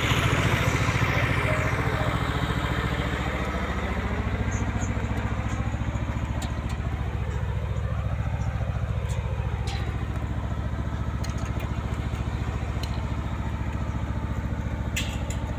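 An engine running steadily with a fast, even throb, with a few sharp clicks over it.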